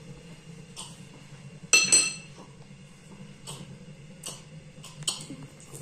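Tableware clinking during a meal: forks tapping on china plates a few times, with one loud ringing clink about two seconds in.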